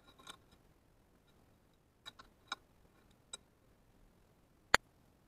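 Handling noise from working a braided rope around the metal handle of an old cast-iron flat iron: a few scattered light clicks and taps, then one sharp, louder click near the end.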